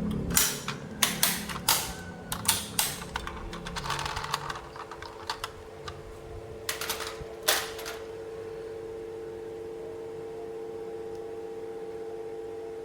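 Hard plastic toy parts clicking and tapping as they are handled: a quick run of sharp clicks over the first three seconds and a few more about seven seconds in, over a faint steady hum.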